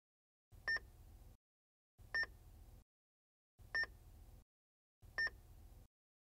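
Heart-monitor style electronic beeps: four short, high beeps about one and a half seconds apart, each with a faint low rumble under it.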